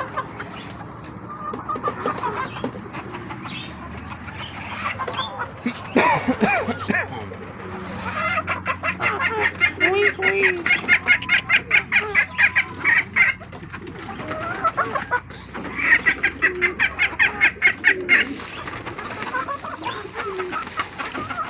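Homing pigeons at feeding: scattered low coos, with two spells of fast, rhythmic fluttering, the first in the middle and a shorter one near the end.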